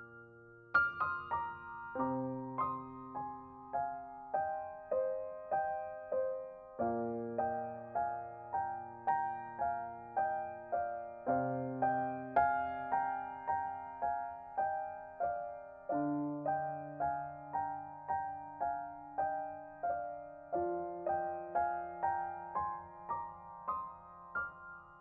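Background music: a gentle solo piano melody, about two notes a second, over slow held bass chords.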